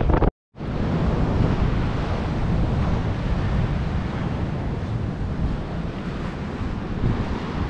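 Wind buffeting the microphone over the steady wash of ocean surf on a beach. A split-second gap in the sound comes just after the start.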